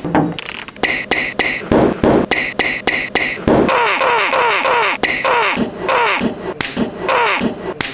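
Layered sound collage: quick knocks and taps, two held high tones in the first few seconds, then a run of short falling swoops about twice a second.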